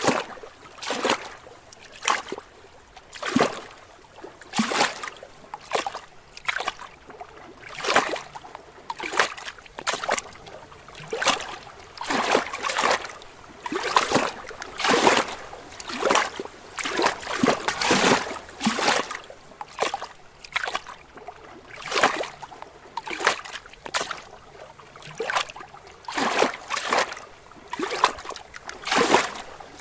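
Small lake waves lapping against rocks: short splashes about once a second, uneven in strength, with a soft wash of water between them.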